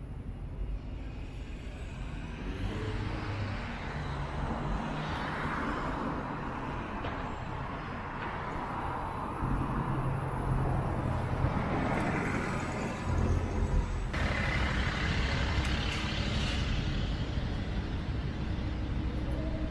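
City street traffic: vehicles driving past one after another, each one swelling and fading, over a steady low engine rumble.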